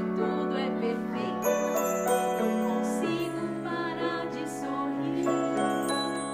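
Gentle stage-show music of long held notes, with light bell-like tinkles over the top from about a second and a half in.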